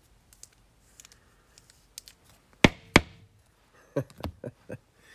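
Knocks and taps from handling trading cards and their plastic stands on a tabletop: light clicks at first, two sharp knocks about two and a half seconds in, then a quick run of softer knocks near the end.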